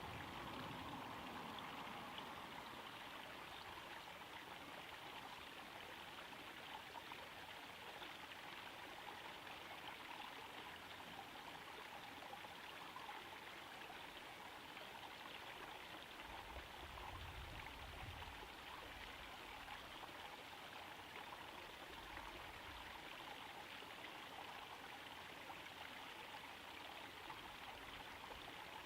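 Small pond waterfall trickling steadily into the pond: a faint, even splashing of falling water.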